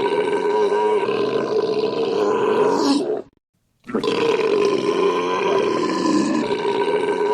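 A long, loud, drawn-out belch from a man in a belching contest. It cuts off suddenly about three seconds in, and after a brief silence the same belch starts over.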